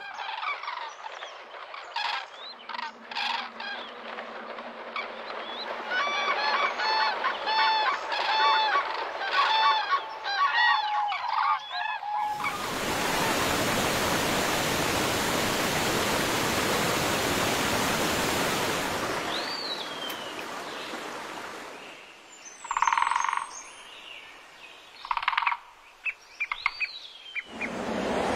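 A run of loud, repeated animal calls, thickest from about six to eleven seconds in. This gives way suddenly to the steady rush of a river in spate pouring over rocks, which fades out after several seconds. Scattered bird calls follow near the end, including a few short falling whistles.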